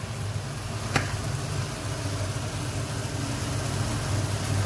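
Steady low mechanical hum with a faint hiss over it, and one light click about a second in.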